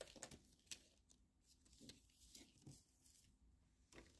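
Faint rustling and light taps of trading cards and cardboard packaging being handled, as scattered soft clicks.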